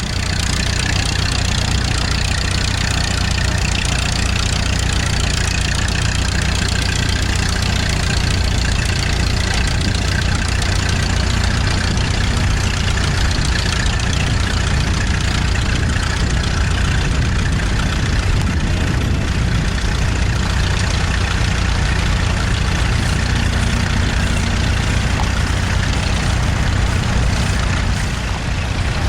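Vintage tractor engine running steadily under load while ploughing.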